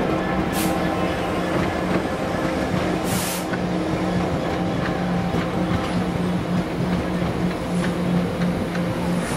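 Long freight train of covered hopper wagons rolling past, a steady rumble of wheels on the rails with a low hum. Two brief hisses come about half a second and three seconds in.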